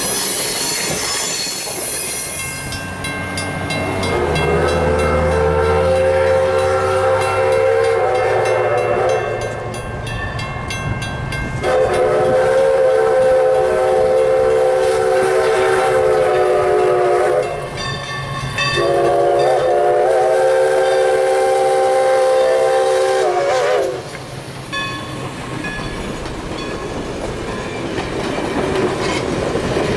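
Wheel squeal from passenger cars fades in the first couple of seconds. Then Everett Railroad No. 11's steam whistle blows three long blasts, each a chord of several notes. After that the passenger train rolls past with wheels clacking over the rail joints.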